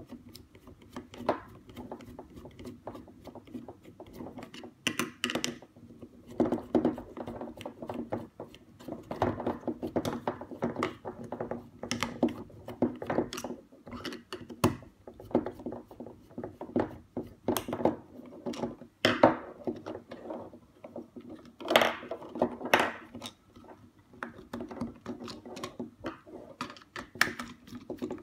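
Phillips screwdriver turning small screws out of a MIP robot's plastic body, with irregular clicks, scrapes and knocks of the plastic casing being handled on a wooden table.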